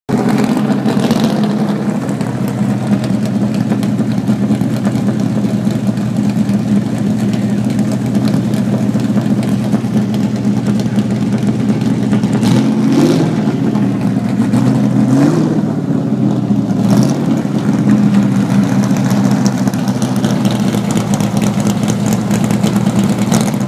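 Plymouth Superbird race car's V8 idling steadily, its throttle blipped three times about halfway through.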